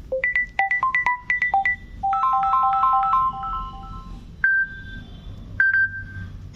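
Samsung Galaxy Tab A 8.0 ringtone playing: a short melody of bright electronic notes, then a quick repeating two-note figure, then two single higher notes about a second apart.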